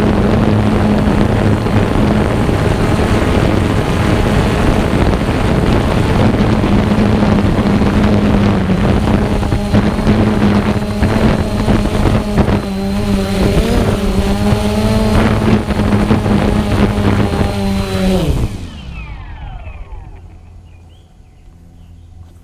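Quadcopter motors and propellers of a Xiro Explorer drone humming steadily, picked up close by its own mounted GoPro with wind noise over it. The pitch wavers for a few seconds as it comes in to land, then the motors spin down and stop about eighteen seconds in.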